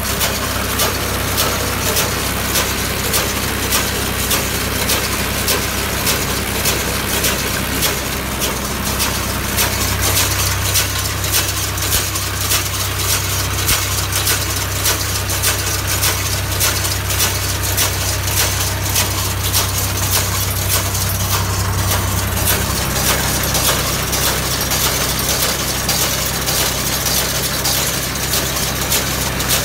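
Swaraj 744 XM tractor's diesel engine running steadily while driving a round straw baler, with a dense, rapid metallic clatter from the baler's machinery. The engine note shifts about ten seconds in and again a little over twenty seconds in.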